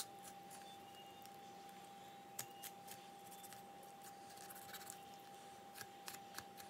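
Near silence with a few faint scattered clicks and soft wet handling sounds of a raw chicken being cut apart by hand, over a steady faint hum.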